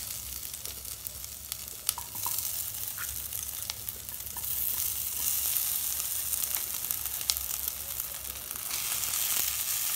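Hot oil and fried masala paste sizzling in a frying pan as boiled potatoes are broken in by hand, with a few light ticks. The sizzle swells about halfway through.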